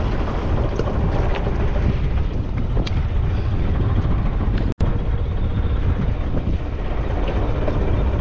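Wind buffeting the microphone over a steady low rumble aboard a small fishing boat at sea, with a brief dropout about halfway through.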